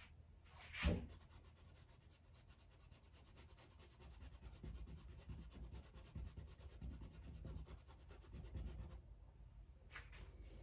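Paintbrush rubbing acrylic paint onto a stretched canvas in soft, uneven strokes, with a single sharp knock about a second in.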